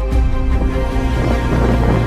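Instrumental background music: sustained chords over a deep bass, changing chord just after the start.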